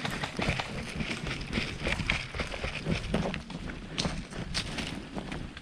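Hurried footsteps of a player moving over the ground: a quick, uneven run of steps.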